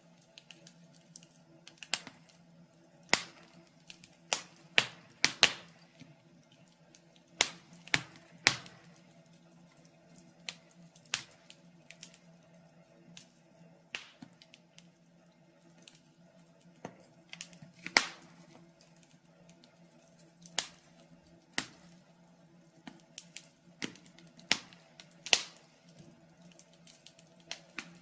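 Fire crackling in a fireplace: irregular sharp pops and snaps, sometimes in quick pairs, over a faint steady low hum.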